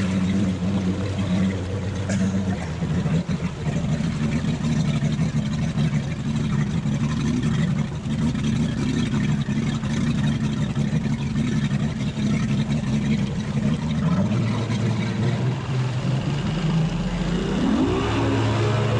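Mercury outboard motor running steadily at low speed with water splashing past the hull. Near the end it is throttled up and its pitch climbs as the boat speeds up.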